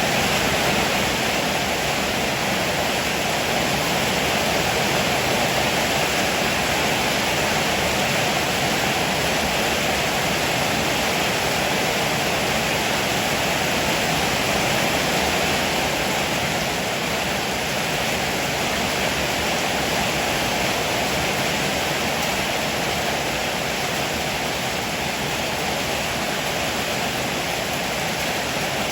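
Heavy rain pouring steadily on a roof, an even, unbroken hiss.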